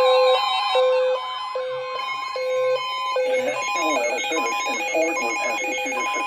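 Electronic two-tone alert signal, a low and a high beep taking turns a little more than twice a second. From about three seconds in, other wavering electronic tones are layered over it.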